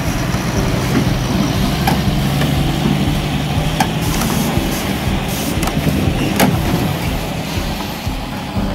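Heavy semi-truck's diesel engine running, a steady low rumble, with a few short clicks.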